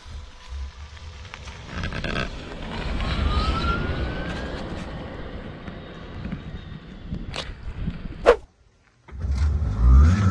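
Tesla electric drive unit in a swapped Toyota Supra pulling away: a thin electric-motor whine rising in pitch over a low rumble. A sharp click about eight seconds in, a brief drop-out, then the whine rises again on a second pull-away.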